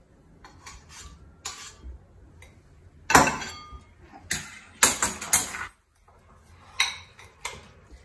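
A metal spoon clinking and scraping against a metal pot in several separate strokes, the loudest about three seconds in and a quick cluster around five seconds.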